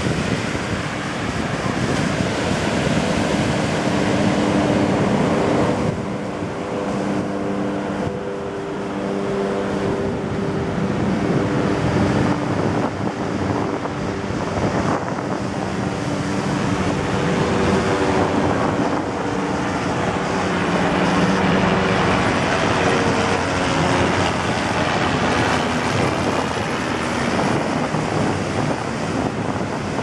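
Surf breaking and washing up the beach, with wind buffeting the microphone and the sound swelling and easing with the waves. A faint low hum comes and goes through the middle.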